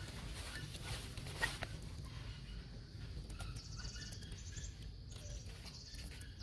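Outdoor forest ambience: a faint steady high insect drone over a low rumble, with a quick run of high chirps near the middle and a few soft clicks, the sharpest about a second and a half in.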